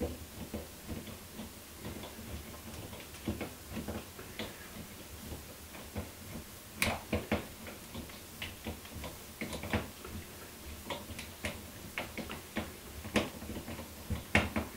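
Screws being turned by hand with a screwdriver into a metal conduit clamp fitting: irregular small clicks and scrapes of metal on metal, with a few louder clicks scattered through.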